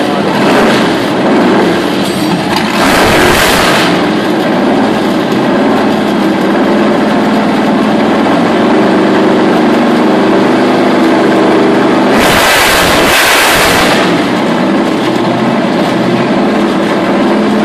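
Big engine of a custom drag-style motorcycle running loudly on a stand, with two sharp throttle revs, about three seconds in and again about twelve seconds in.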